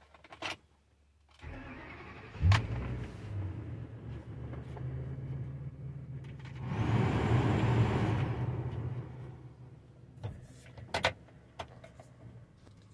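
Ford 6.8-litre V10 gasoline engine of a 2008 F-450, heard from inside the cab, cranking and catching a second or two in, then idling steadily. About midway there is a louder rushing swell lasting a couple of seconds, and a few sharp clicks come near the end.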